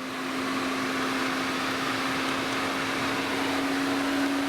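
Electric engine cooling fan of a 2011 Infiniti M56 running on its own with the engine off and cold: a steady hum with a rush of air, its pitch creeping slightly upward. It runs constantly because its right-side fan control module has failed.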